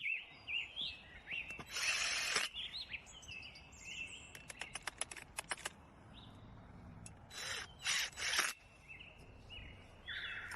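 Small birds chirping and twittering throughout. Three short, loud noisy bursts (one about two seconds in, a pair near the end) and a quick run of sharp clicks in the middle cut across them.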